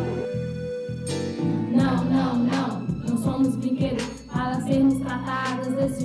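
A song: singing over an instrumental accompaniment with a steady pulse of struck notes that comes in about two seconds in.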